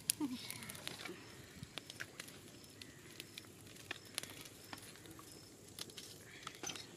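Small open wood fire crackling, with irregular sharp snaps and clicks as dry sticks and firewood are handled and laid around it.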